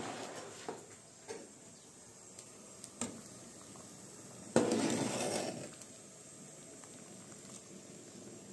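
Metal utensils clinking and scraping against pots and pans while stirring food on the stove, with one loud clank about halfway through.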